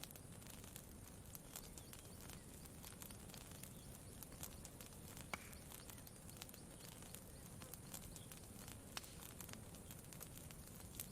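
Campfire crackling faintly, with scattered sharp pops and one louder pop about five seconds in, over a low steady wash of lake water lapping.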